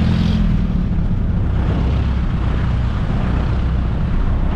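Jeepney engine running steadily while driving, a loud low drone with road and traffic noise, heard from inside the vehicle.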